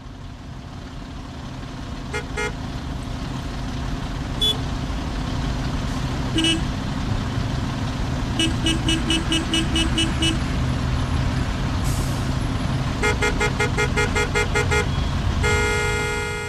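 Heavy road traffic, engines running, rising over the first few seconds, with car horns honking: single toots early on, rapid runs of short beeps about halfway through and again near the end, then one longer held blast.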